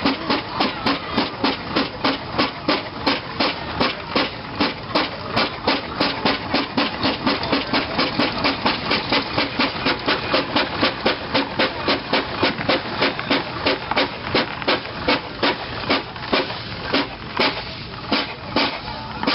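Fowler steam ploughing engine's exhaust chuffing in quick, even beats, about three a second, as the engine works its winding drum hauling in the cable.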